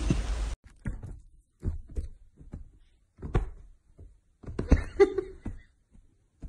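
Irregular soft thumps and knocks as a kitten hops and pounces on a bed, with a cluster of louder thumps about five seconds in.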